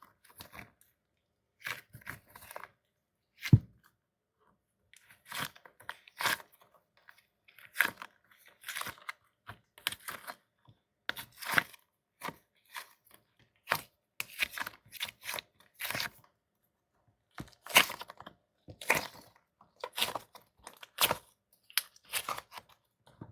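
Crunchy squishy ball being squeezed and released over and over, giving short bursts of crunching and crackling at an irregular pace. One sharp, deeper thump comes about three and a half seconds in.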